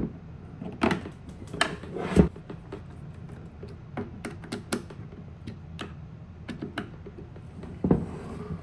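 Scattered clicks and knocks of metal parts being handled: VRH brackets and screws being fitted to a Onewheel GT's side rails, and the board being set on the wooden workbench. The loudest knock comes about two seconds in.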